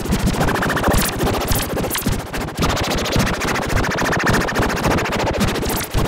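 Emergency-alert-style alarm: a loud, harsh electronic sound made of very fast pulses, its tones changing about half a second in and again about halfway through.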